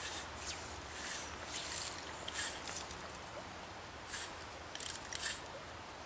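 Fly rod and floating fly line swishing through the air in repeated casts: a string of short, hissy swishes, often in quick pairs, over the steady rush of the river.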